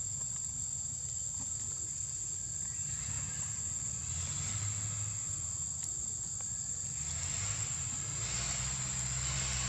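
Steady, high-pitched drone of insects, one unbroken tone. Underneath is a low rumble that grows stronger near the end.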